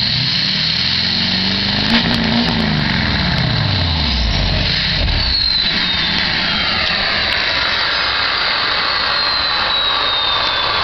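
Duramax LLY 6.6 L V8 turbo-diesel running through a straight-pipe exhaust: one rev rising and falling over the first four seconds. It then settles into a steady exhaust rush while the turbocharger's high whistle slowly falls in pitch.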